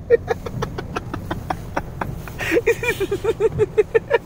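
A person laughing hard in quick, high-pitched bursts, about five a second, with a breath drawn about halfway through.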